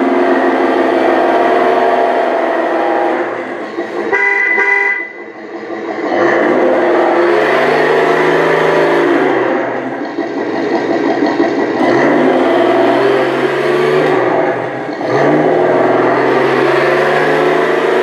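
Simulated engine sound from the Tamiya Toyota Tundra Highlift RC truck's multi-function sound unit, revving up and falling back in waves through its small speaker, with a short horn beep about four seconds in.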